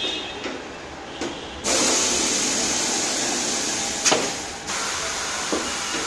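Compressed air hissing at a tyre-changing machine, starting suddenly about two seconds in. A sharp click comes about four seconds in, and the hiss then carries on a little quieter.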